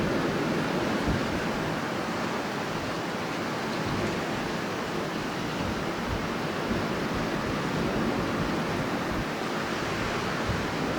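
Strong wind blowing steadily: a deep, even rushing noise with no gusts or breaks.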